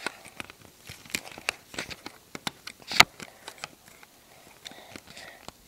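Plastic Lego pieces clicking and clattering as they are handled, with one sharper click about three seconds in.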